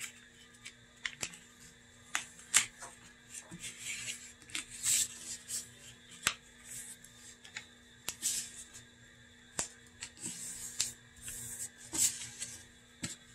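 A sheet of paper being folded and creased by hand: irregular rustles and crinkles with sharp little clicks and taps as fingers press down the folds.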